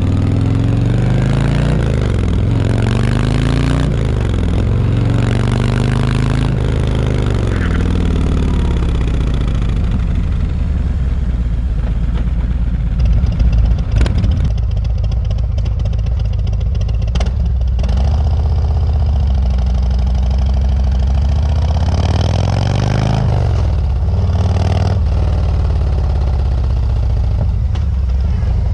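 Harley-Davidson Road Glide's Milwaukee-Eight V-twin running on the road, its note rising and falling with the throttle and gear changes. For about the first half it breathes through the stock exhaust. After a short loud jumble of noise about halfway through, it runs through Rinehart DBX45 slip-on mufflers, again rising and falling.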